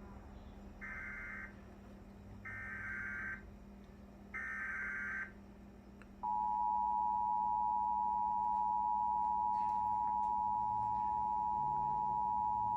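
Emergency Alert System broadcast tones: three short bursts of the SAME digital header, then, about six seconds in, the steady two-tone EAS attention signal.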